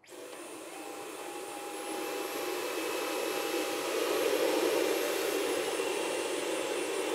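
Dyson cordless stick vacuum with a High Torque cleaner head running while picking up coffee grounds: a steady rushing hum with a faint high whine, growing louder over the first few seconds. The high whine steps up in pitch about two seconds in and drops back near the end.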